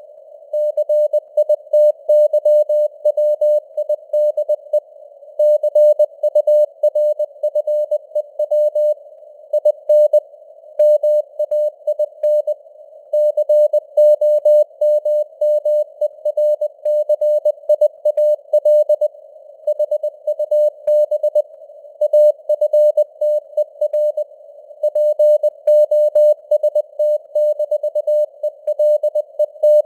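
Morse code (CW) tone keyed at 20 words per minute, a single steady beep switching rapidly on and off in dots and dashes, with short gaps between letters and words. A narrow hiss of simulated radio receiver noise sits around the tone throughout.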